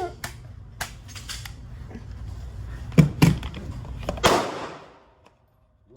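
Gunshots at a shooting range: two sharp, very loud reports about three seconds in, then another a second later that rings out in a long echoing tail, and one more right at the end. Lighter clicks come before the shots.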